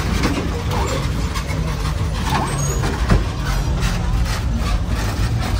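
A motor vehicle engine running steadily close by, low and even, amid street noise with scattered short clicks.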